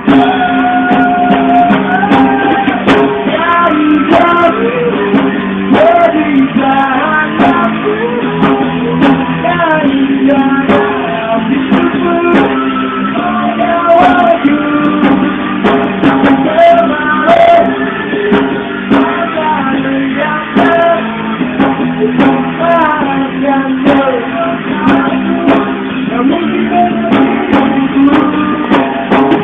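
Live band music: a wavering melody line over sustained guitar and keyboard-like notes and a steady drum beat.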